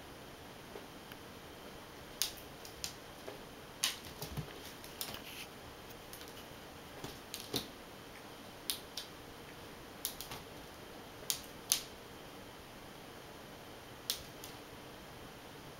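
Sharp, irregular clicks and taps from a cat batting at a click beetle, coming singly or in quick pairs and small clusters, with the last pair near the end.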